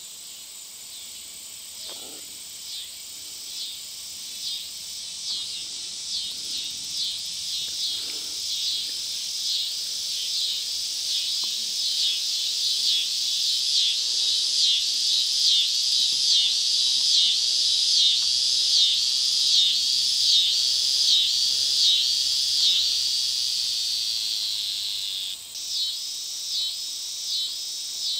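Summer evening insect chorus, a dense high buzzing that swells and fades in regular pulses a little more than once a second. It grows louder over the first twenty seconds, drops briefly about 25 seconds in, then carries on.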